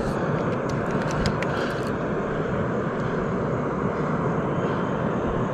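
Steady rushing roar of water pouring through the dam spillway. A quick run of light clicks from the baitcasting reel comes in the first two seconds as the fish is played.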